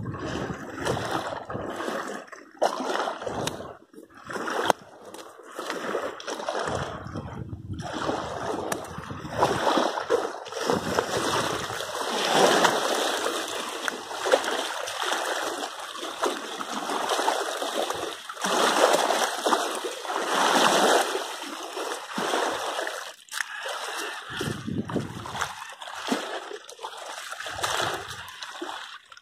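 A rough, fast-flowing river rushing and splashing in a steady noisy rush that swells louder in the middle stretch and eases again.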